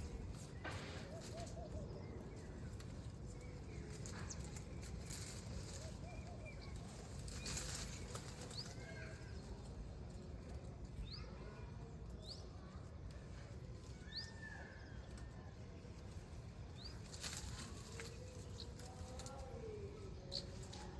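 Small birds calling in scattered short rising chirps and whistles, with brief rustling bursts among them and a steady low rumble underneath.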